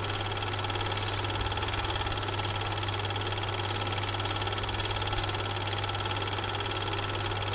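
Super 8 film projector running, a steady mechanical whirr over a constant low hum, with two sharp clicks about five seconds in. The film itself is silent, so this is the noise of playing it back, not the train.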